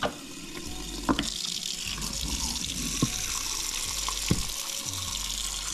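Kitchen faucet running in a steady stream into a stainless steel sink. A few sharp knocks sound over it.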